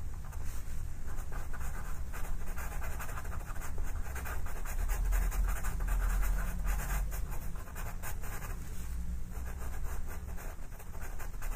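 Black pastel pencil shading on textured pastel paper: a dense run of rapid, short rasping strokes, with a low rumble about five seconds in.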